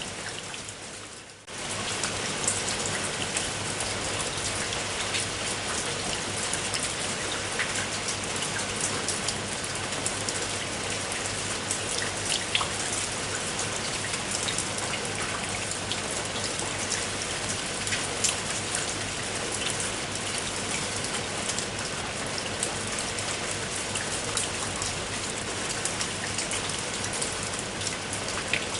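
Steady rain falling, with individual drops ticking sharply on a surface through the even hiss. The sound fades down briefly about a second in and then comes back in abruptly.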